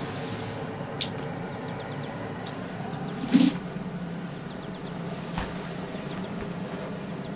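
Hose-type futon dryer running with a steady fan hum while its hose is handled. A short high beep sounds about a second in, and a single knock comes about three seconds in.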